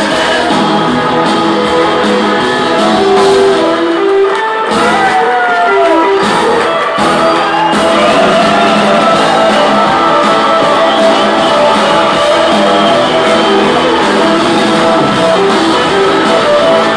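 A surf rock band playing live, with electric guitars and drums and with singing and shouting voices over the band.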